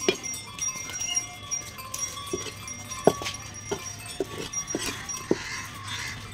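Long curved blade chopping through katla fish flesh and bone onto a wooden log chopping block: a series of short, dull knocks at uneven intervals, one near the start and a cluster in the second half.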